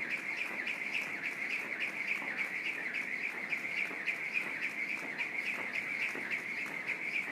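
Jump rope skipping at a fast, steady pace: the rope whirs with each turn and ticks against the rubber gym floor several times a second.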